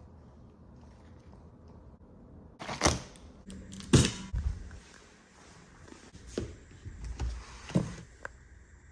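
Handling noises: a handful of separate thunks and knocks as plastic supplement tubs and a plastic bottle are picked up and set down on a hard countertop and a cabinet shelf is rummaged, the two loudest about three and four seconds in.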